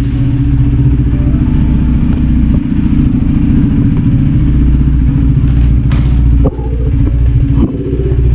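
KTM RC 390's single-cylinder engine idling steadily, unrevved, on its first run after about eleven months in storage. The sound dips briefly twice in the second half.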